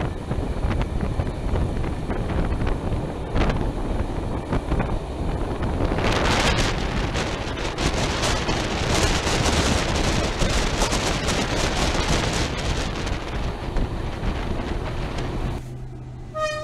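Wind buffeting the microphone at the window of a moving loco-hauled passenger train, over the rumble of the coaches on the track. The rush grows louder and brighter about six seconds in, then drops away suddenly near the end to a low hum with a brief high tone.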